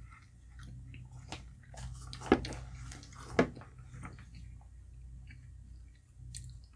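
Metal spoon clinking and scraping against a glass bowl while digging through shaved ice and syrupy halo-halo, with two sharper knocks in the middle, along with wet chewing. A steady low hum runs underneath.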